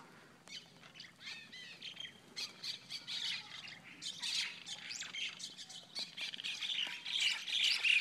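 A group of mynas fighting, many short overlapping calls that grow louder and busier from about halfway through.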